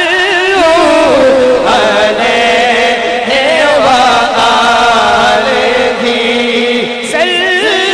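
Men's voices chanting a devotional naat refrain together through microphones and a PA, in long, wavering, drawn-out notes.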